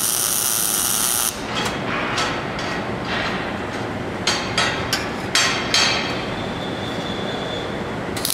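Metalwork on a dirt bike mount: a steady hiss cuts off about a second in, then a series of about eight sharp knocks over a constant background rumble.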